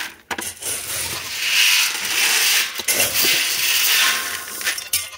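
Handling noise from steel drum feed barrels and their rusty metal lids: rough scraping and rattling that swells and fades in several stretches, with a few sharp knocks and clinks.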